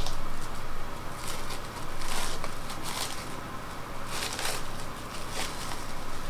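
Plastic wrapping crinkling and rustling in several short bursts as it is peeled off a log of frozen goat cheese by hand.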